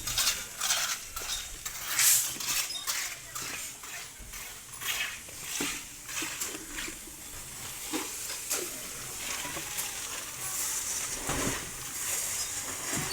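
Irregular scraping and rasping strokes of a tool working a gritty surface, several strokes a second at first, thinning out and becoming steadier later.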